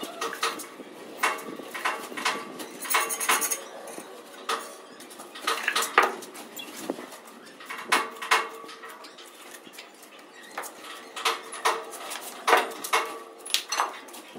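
Steel mason's trowel scraping and clinking on cement mortar and stone in irregular strokes, each clink with a faint metallic ring.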